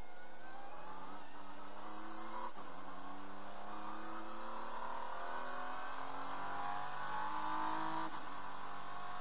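Acura NSX GT3 race car's twin-turbo V6 accelerating hard, heard from inside the cockpit. Its pitch climbs steadily, dropping with a quick upshift about two and a half seconds in and again near the end.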